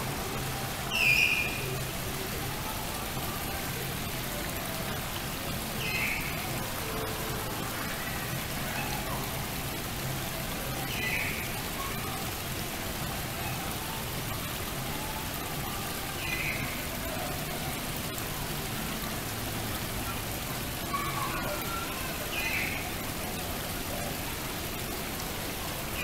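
Small garden-pond waterfall splashing steadily into the water. A short high sound recurs about every five seconds, loudest about a second in.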